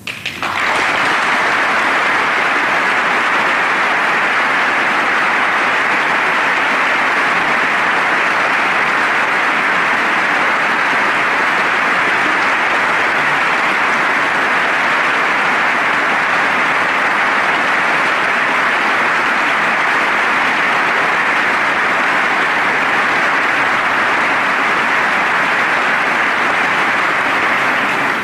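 A large audience applauding steadily for almost half a minute, breaking out abruptly at the start.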